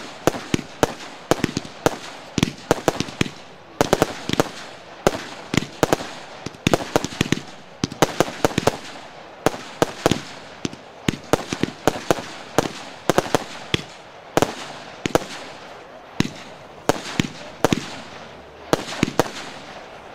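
A Z39 consumer fireworks cake of about 200 grams firing shot after shot, with a rapid, irregular run of sharp bangs and pops, several a second.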